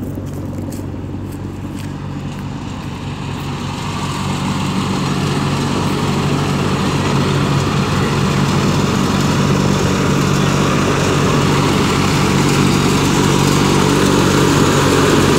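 Tractor-driven grain thresher running steadily while threshing wheat and barley: a low engine hum under the machine's broad noise, growing louder over the first several seconds and then holding.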